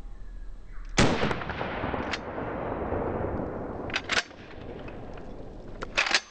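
A pump-action shotgun fires one shot about a second in, the blast echoing off and dying away over nearly three seconds. The action is then racked one-handed with two sharp clacks, back and forward, and near the end a quick run of three more clacks as the action is worked again.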